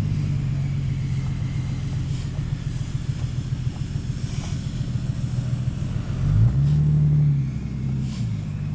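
Jeep engine running steadily at low revs, then revving up about six and a half seconds in, holding for about a second and dropping back.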